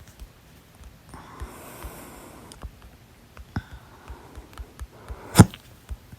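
A person's single loud hiccup about five seconds in, sudden and sharp, after a softer breathy sound about a second in.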